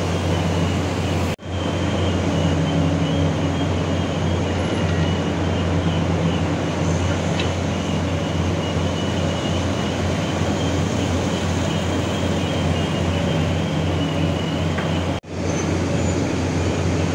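Large diesel engines of heavy earth-moving machinery running steadily, a low, even drone. The sound cuts out briefly twice, about a second and a half in and near the end.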